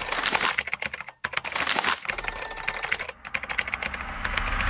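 Glitch-style intro sound effect: a fast, irregular stream of clicks and crackles, cutting out briefly about a second in and again about three seconds in.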